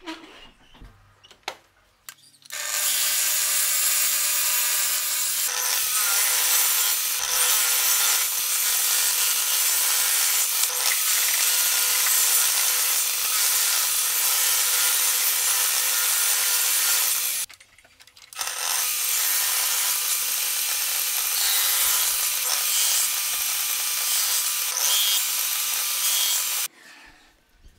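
Table saw running and cutting wood: the steady whine of the motor and blade under the hiss of the cut. It starts a couple of seconds in and runs in two long stretches, with a short break about two-thirds of the way through.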